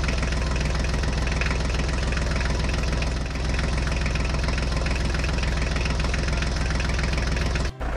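Tractor engine sound effect: an engine idling steadily with a fast knock, cutting off suddenly near the end.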